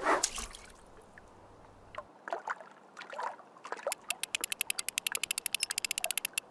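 Cartoon fishing sound effects: a whoosh as a fishing line is cast, then a few short watery plops and bubbles. About four seconds in, a fishing reel's ratchet starts clicking rapidly and evenly, about nine clicks a second, as the line is reeled in.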